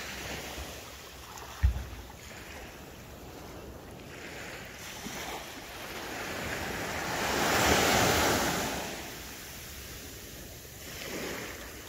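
Small waves breaking and washing up over a sandy beach, the wash swelling to its loudest about eight seconds in and again briefly near the end, with wind buffeting the microphone. A brief low thump about two seconds in.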